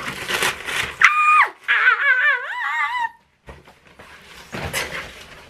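Shoebox tissue paper rustling, then a high-pitched excited squeal about a second in, followed by a wavering, trilling squeal that breaks off near the middle. After a brief gap, softer paper rustling and a click follow.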